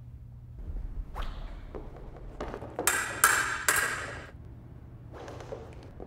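Fencing blades clashing: a few light taps, then three sharp metallic clashes in quick succession about three seconds in, each ringing briefly, with fainter contacts near the end. A low steady hum runs underneath.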